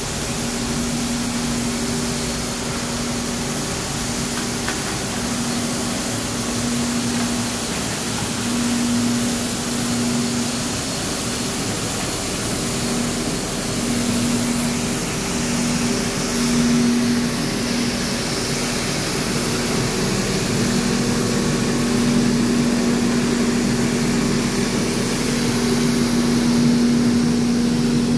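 Bucher CityCat compact street sweeper running: its engine and suction fan give a steady hum over an even hiss of brushes and suction. The hum comes and goes in the first half, then holds steady and grows a little louder as the sweeper draws closer.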